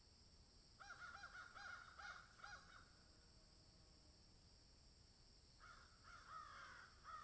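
Crows cawing: a run of about six harsh caws, roughly two or three a second, then a pause, then a second bout of overlapping caws near the end, as if from more than one bird.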